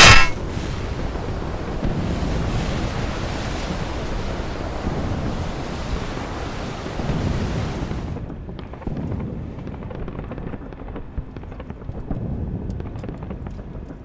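Rumbling sea-surf and wind noise after a brief loud burst at the very start. About eight seconds in the sound turns duller, losing its hiss, with faint scattered ticks over the low rumble.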